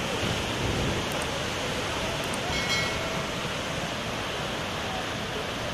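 Waterfall in flood, muddy floodwater pouring over a rock ledge and churning below: a steady, dense rushing of water that does not let up.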